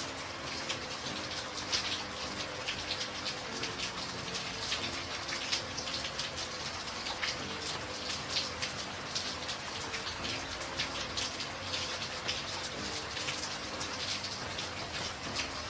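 Steady rainfall, with many individual drops striking close by as sharp ticks over a continuous hiss.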